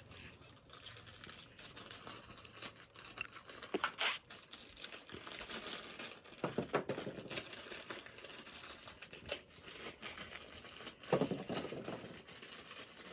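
Plastic packaging crinkling and rustling as it is handled, with a few sharp clicks.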